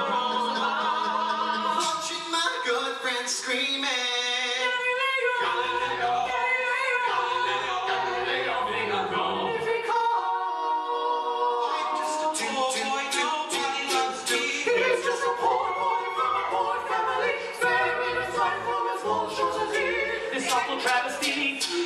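A cappella vocal band of mixed male and female voices singing in close harmony, with mouth-made percussion ticking in a steady beat through the second half.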